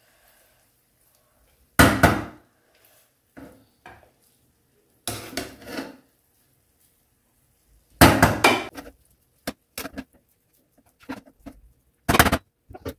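Metal slotted spatula scraping and knocking against a nonstick frying pan and ceramic plates as rice is scooped out and served: a few loud clatters, about two, five, eight and twelve seconds in, with lighter clicks between.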